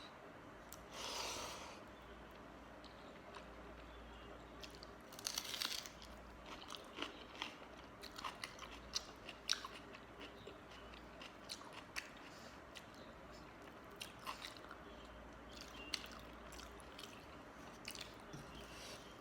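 Close-up eating sounds: a person chewing a meal of panta bhat, water-soaked rice, with a few soft, wet noises early on giving way to many short, sharp crunchy bites and chews.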